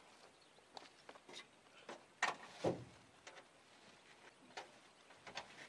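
Bags and camping gear being handled and set down in the bed of an old pickup truck: scattered soft knocks and rustles, with two louder thumps a little over two seconds in, about half a second apart.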